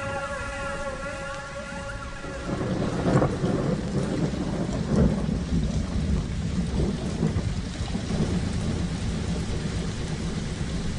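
Synthesizer music with sliding tones cuts off about two seconds in, giving way to a steady, rumbling wash of audience noise.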